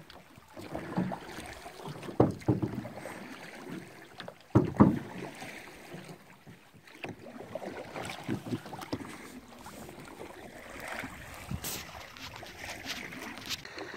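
Canoe paddling: paddle strokes dipping and splashing in the water, with a few sharp knocks, the loudest about two seconds and four and a half seconds in.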